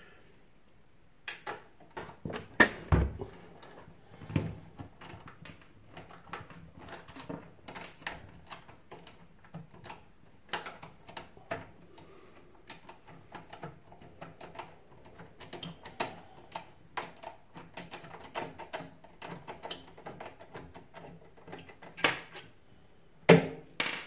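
Irregular small clicks and taps of a screwdriver and loose metal screws being handled on a wooden desk beside a microwave's sheet-metal case, with a few louder knocks about three seconds in and near the end.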